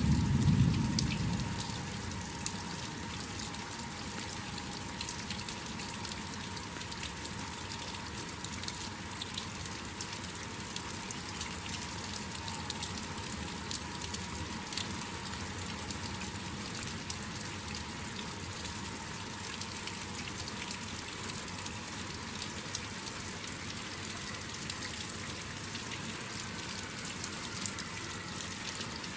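Steady rain with the patter of drops falling during a thunderstorm. A low rumble of thunder at the start fades away within about two seconds.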